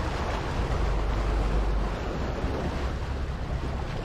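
Balboa Island auto ferry's engine running with a deep low rumble under a steady rush of churning water and wind; the rumble eases a little about halfway through as the ferry closes on its landing.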